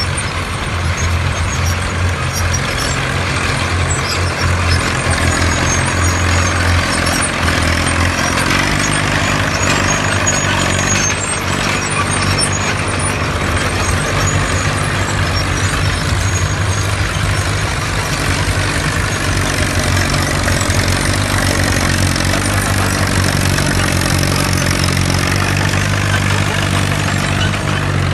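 OM crawler tractors' diesel engines running steadily under load while pulling a disc plow through the soil, the engine note shifting higher about eight seconds in.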